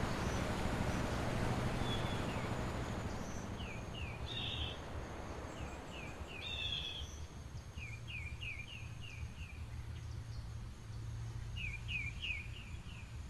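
Small birds chirping in quick runs of short, falling notes, several runs in a row, over a steady low hum. A broad rush of a motorboat and its wake fades away over the first few seconds.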